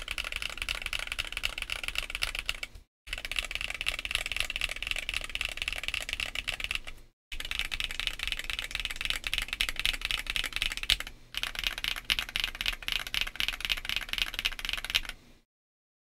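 Fast continuous typing on a Monsgeek M1W mechanical keyboard modded with Tempest tape and polyfill, fitted with Akko Piano V3 Pro switches and PBT OEM keycaps: a dense run of key clacks. The typing breaks off into short silent gaps about three and seven seconds in and stops shortly before the end.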